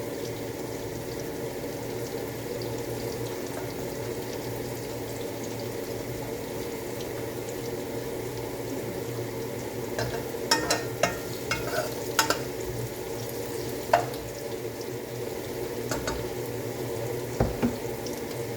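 Diced potatoes and luncheon meat frying in oil in a pan, a steady sizzle. From about ten seconds in, a quick run of sharp clinks and knocks of a utensil against the pan, then a few single knocks near the end.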